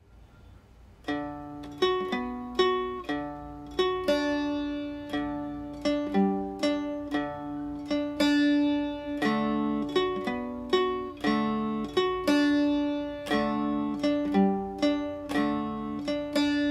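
Instrumental music: a melody of plucked string notes, each struck sharply and then ringing away, played over a low steady drone. The notes come in about a second in, after the drone has faded in.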